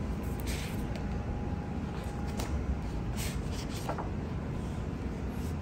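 A hardbound book being opened and its pages handled: a few faint paper rustles and soft taps over a steady low background rumble.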